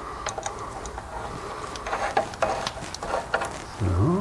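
Scattered small metallic clicks and scrapes of a 13 mm spanner being fitted to the nut of a rusty exhaust clamp.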